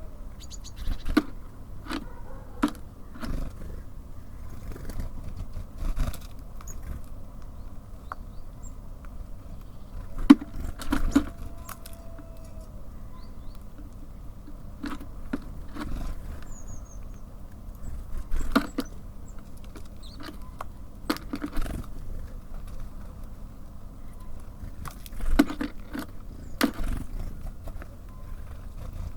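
Irregular sharp taps, clicks and scrapes of small birds pecking and hopping about on a bird feeder, over a steady low hum of distant city traffic, with a few faint high chirps.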